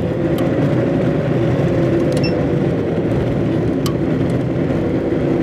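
Vehicle driving on a gravel road, heard from inside the cab: a steady engine and tyre noise, with the engine note easing slightly lower and a few light ticks.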